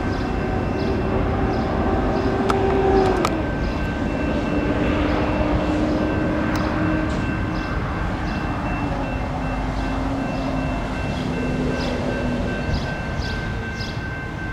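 Freight train cars rolling along the track with a steady rumble, while the crossing's electronic bells ding over and over. A long whine steps down in pitch over the first ten seconds or so.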